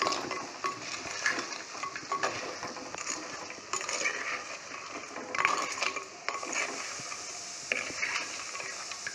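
A steel spoon stirring crab pieces in an earthenware pot, clinking and scraping against the clay and the hard shells in irregular knocks, over a light frying sizzle.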